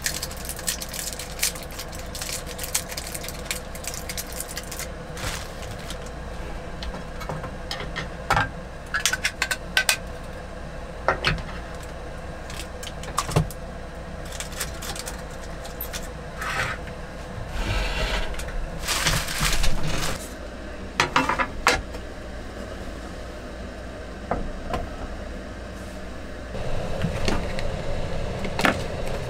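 Plastic wrapping crinkling and small metal parts clicking, clinking and tapping against a wooden table as a small item is unwrapped and fitted together by hand. Near the end a fuller, steady noise comes in.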